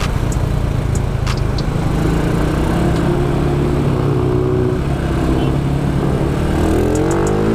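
Motorcycle engine running while riding, its pitch climbing near the end as it speeds up.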